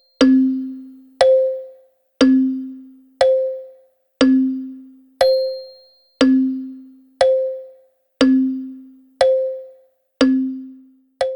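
Wall clock ticking steadily at one beat per second, alternating tick and tock. Each beat is a sharp click with a short, fading ring, a lower ring on every other beat.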